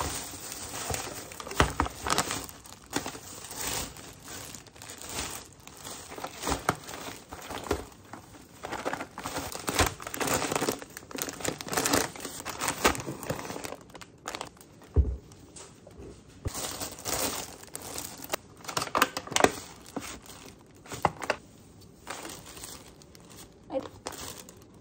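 Thin plastic shopping bags and food packaging rustling and crinkling in uneven fits and starts as groceries are pulled out and handled.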